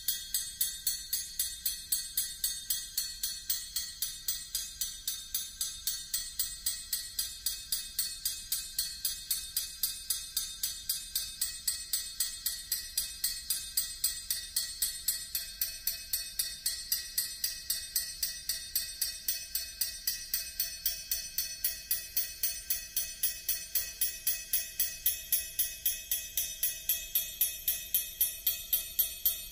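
An amplified metal triangle tapped with a metal beater in a steady, even stream of rapid strokes, several a second. Each stroke sets off a bright, high ringing whose overtones shift slowly as the player varies the damping and the spot where the beater strikes.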